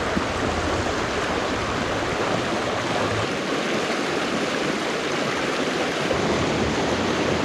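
Rocky mountain stream rushing over boulders and small rapids: a steady, unbroken wash of water.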